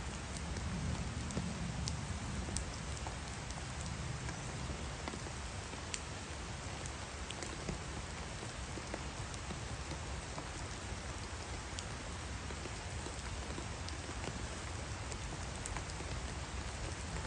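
Steady rain falling on grass, palms and trees: an even hiss with scattered sharp ticks of drops striking close by.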